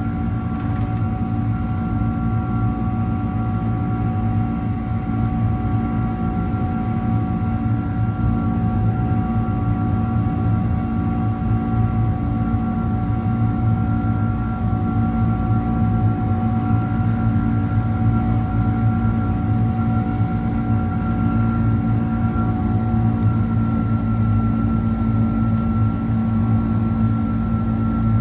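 Cabin sound of a Boeing 767-300ER climbing out after takeoff, heard from a window seat over the wing: its Rolls-Royce RB211 turbofan engines running at high thrust as a steady loud rumble, with several steady whining tones held over it.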